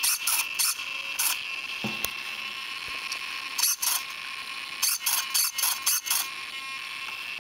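Bursts of quick, ratchet-like mechanical clicking in irregular clusters, over a faint steady high whine.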